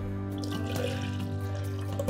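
Background music, with soy milk poured from a measuring cup into a plastic hand-blender beaker during roughly the first second.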